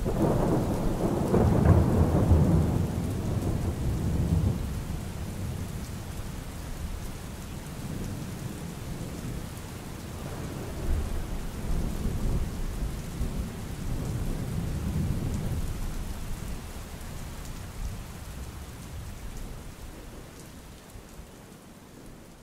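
Rain falling with low rolling thunder that swells several times, the whole fading out toward the end.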